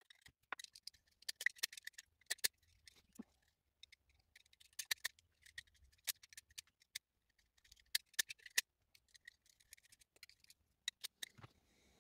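Utility knife trimming the flash off a freshly cast polyurethane resin lure body: short, sharp cutting clicks and scrapes in irregular clusters.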